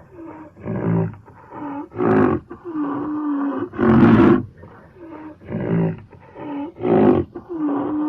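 Rhinoceros calling: a run of short grunts, then a long steady moan and a loud bellow, after which the same run of calls starts again.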